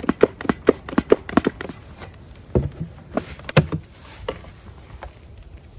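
A tool scraping and tapping on the wooden top bars of an open beehive's frames. There is a quick run of strokes, about four a second, then a few separate knocks, the loudest about halfway through.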